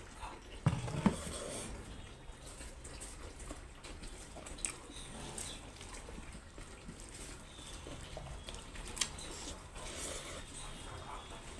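Close-up eating sounds: wet chewing and lip smacks, with soft squishing and rustling as fingers mix rice and curry on a banana leaf. There are two sharper knocks about a second in and scattered small clicks after them.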